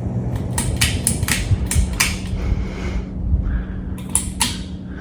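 Cheap Harbor Breeze Armitage ceiling fan just switched off and coasting down, under a steady low hum, with a run of irregular sharp clicks and ticks in the first two seconds and a few more about four seconds in.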